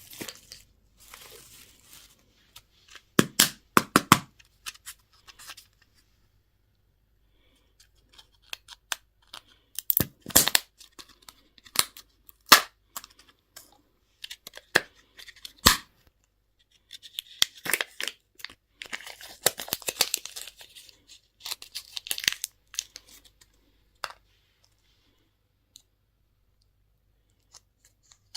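Plastic candy and toy packaging being torn open and handled: irregular bursts of crackling and sharp clicks, with quiet pauses between them.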